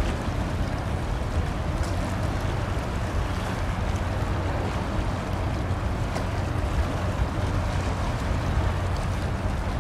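Steady low drone of a ship's engines, with wind on the microphone and the wash of water.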